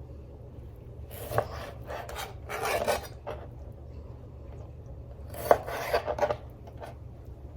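Kitchen knife cutting raw chicken and scraping across a cutting board, in two spells of rasping scrapes and sharp taps, over a steady low hum.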